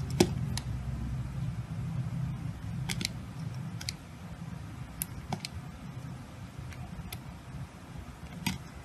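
A snap-off utility knife blade slicing into a bar of soap, with irregular crisp cracks and crackles as the shavings break away, the sharpest just after the start. A low rumble underneath fades out about halfway through.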